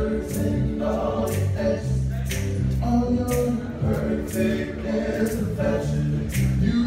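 Vocal group of men singing in close harmony, holding chords that change about every second, with a sharp beat about once a second.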